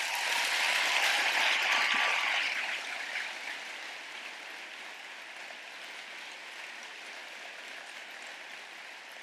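Audience applauding, loudest in the first two to three seconds and then settling into softer, steady clapping.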